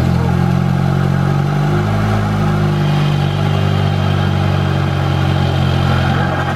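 Volkswagen Mk7 Golf 1.8T turbocharged four-cylinder, now fitted with an IS20 turbo and a catless downpipe, idling steadily just after its first start on the new turbo and stage 2 tune.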